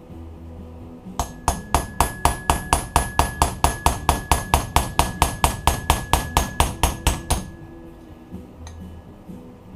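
Rapid hammer blows on a metal tool, about four a second for some six seconds, each with a ringing metallic tone, driving a bushing out of a 4L80E transmission's overdrive assembly.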